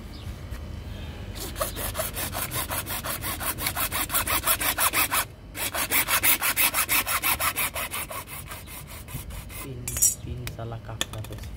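A hacksaw blade sawing through PVC pipe by hand in quick, even strokes, with a brief pause about five seconds in before the sawing resumes and then tapers off. A single sharp click comes near the end.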